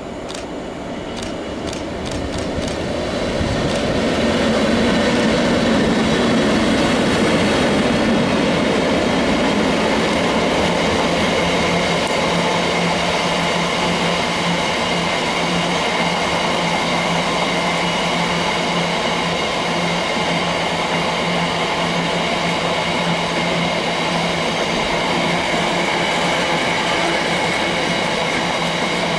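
Freight train headed by two Class 90 electric locomotives, with a long rake of empty flat wagons, passing at speed. It builds from a few sharp ticks and a rising rumble as it approaches, then holds a loud, steady rumble and clatter of wagon wheels on the rails. A steady low drone sets in about twelve seconds in.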